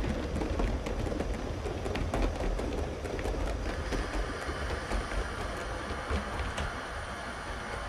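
A 7mm-scale (O gauge) model train of carriages running past on the layout track, its wheels clicking irregularly over the rail joints over a low rumble. The clicks thin out after about four seconds as the train draws away.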